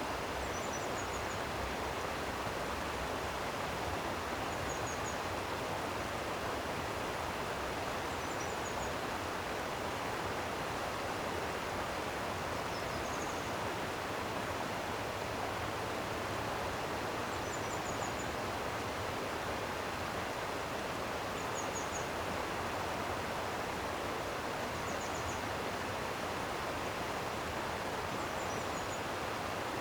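Stream water flowing steadily in an even rush. A faint, short high chirp recurs about every four seconds over it.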